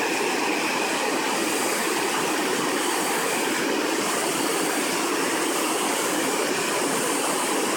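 Waterfall: steady rush of falling water.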